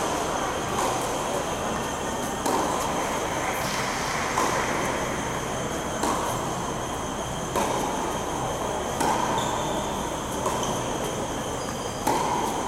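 Steady rushing noise of a large indoor tennis hall, with a constant high whine running through it. Over it come tennis ball strikes about every second and a half during a rally.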